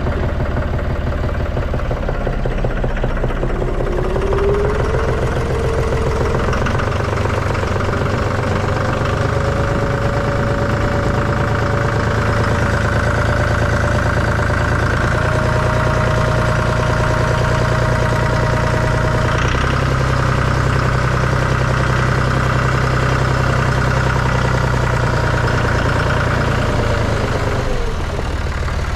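Tractor engine running steadily, with a whine that climbs slowly in pitch from about four seconds in and drops away near the end.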